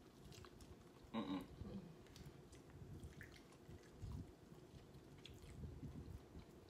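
Faint sounds of people eating chicken wings: quiet chewing and mouth clicks, with a short vocal sound about a second in.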